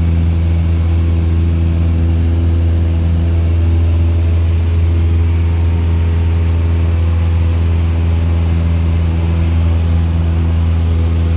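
Cessna 172M's four-cylinder Lycoming O-320 engine and propeller running steadily during the climb after takeoff, heard inside the cabin as a loud, even drone.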